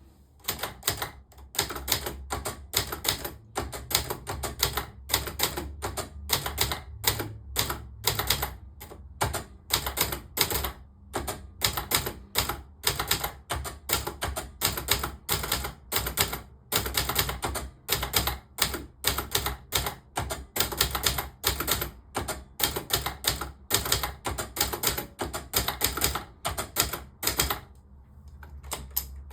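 Brother Deluxe 800 typewriter being typed on: a quick, irregular run of key strikes, several a second. There are short pauses near the middle, and the typing stops about a second before the end.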